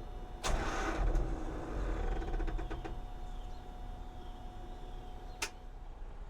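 Reefer unit start attempt that fails: a click, about a second of loud mechanical noise, then a run of rapid clicking. The diesel never cranks or catches because the starter has failed. Another single click comes near the end.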